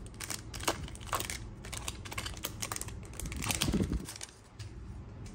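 Foil wrapper of a Panini Prizm football trading-card pack crinkling and crackling as it is torn open and the stack of cards slid out, a quick run of small clicks. A soft handling bump comes about three and a half seconds in.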